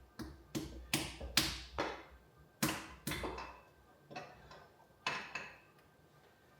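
Irregular series of about ten sharp knocks with short ringing, as a piston and connecting rod are tapped out through the cylinder bore of an engine block.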